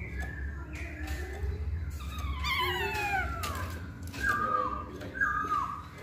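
Poksay Hongkong (black-throated laughingthrush) singing: loud whistled notes, then a warbling, falling phrase about two seconds in, ending with two short down-slurred whistles. A low hum runs underneath.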